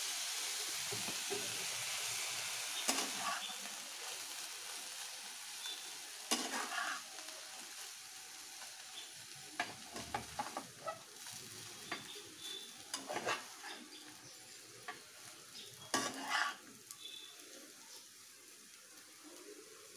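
Chowmein noodles sizzling in a hot pan as they are stir-fried with soy sauce, a spatula scraping and knocking against the pan now and then. The sizzle is strongest at first and dies down gradually.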